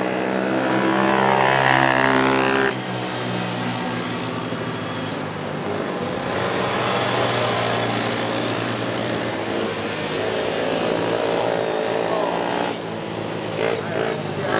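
Racing ATV engines running at high revs. The loudest, most pitched engine sound stops abruptly under three seconds in and gives way to a steadier drone, with an engine rising in pitch about ten seconds in.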